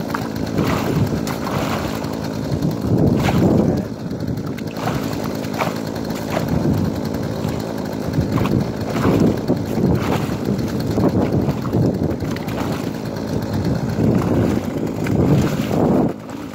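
Rubber boots stomping repeatedly on a sawn block of lake ice floating in its hole, irregular thuds with slush and water sloshing. A steady low engine-like hum runs underneath.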